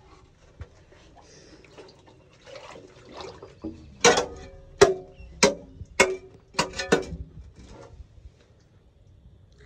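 Steel bar with a wooden handle rammed repeatedly into a blocked drain opening in a sewage-filled manhole, making a run of about six sharp, ringing metal clanks roughly every half second from about four seconds in. Before the clanks there is only faint sloshing and scraping in the sewage.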